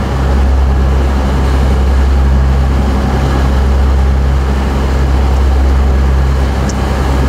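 A boat's engine drones steadily while the boat runs underway, with the rush of wake water and wind over it.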